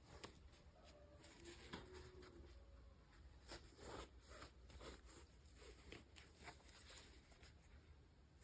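Near silence, with faint scattered rustling and a few light clicks from small packaging being handled.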